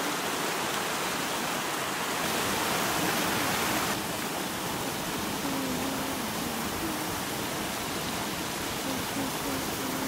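Small rocky stream rushing and splashing over stones in a shallow cascade: a steady hiss of running water that drops a little about four seconds in.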